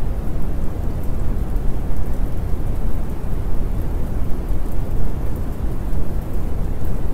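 Steady rain-and-thunder ambience track: a continuous rushing noise, heaviest in the low end.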